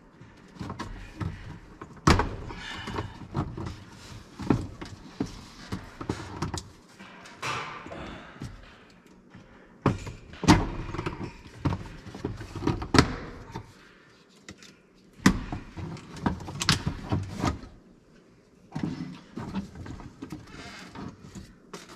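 Scattered sharp clicks and knocks with scraping between them, from hands and a knife working on plastic panels and the wiring harness, cutting loose the stock ECU cover.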